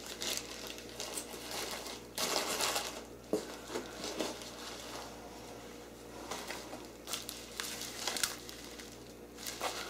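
Bubble wrap and plastic packaging crinkling and rustling in irregular bursts as parts are handled, loudest about two seconds in.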